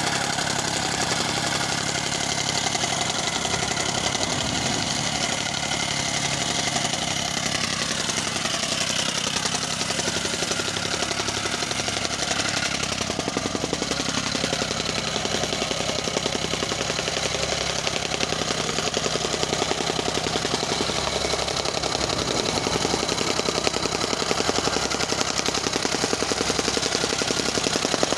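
Small engine-driven road-works machine running steadily with a fast, even rattle, typical of pothole patching work such as compacting or breaking asphalt.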